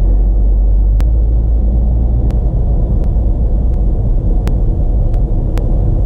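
Steady low rumble of a motor vehicle running, with a few faint ticks scattered through it.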